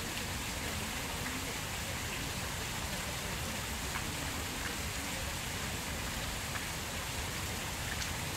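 Tiered park fountain splashing steadily, water falling from its bowls into the basin.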